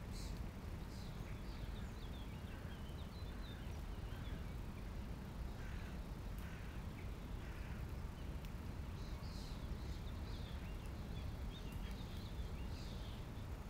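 Small birds chirping and trilling in short, scattered calls over a steady low rumble.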